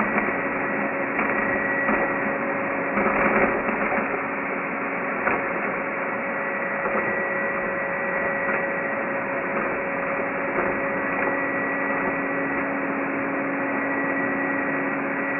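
Numatic Henry Quick cordless vacuum cleaner running steadily: an even motor whine with a few steady tones over a rush of airflow, with a few faint clicks in the first few seconds.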